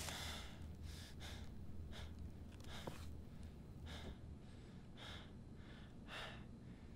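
A woman breathing hard: short audible breaths, roughly one a second.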